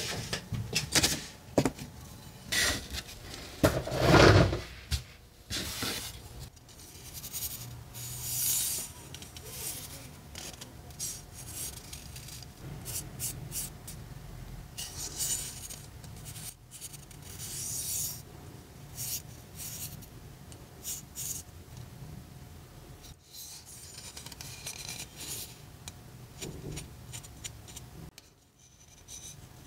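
Hands handling a rusted carbon-steel yanagiba sashimi knife: fingers rubbing and scraping along the steel, with scattered light knocks and one heavier thump about four seconds in.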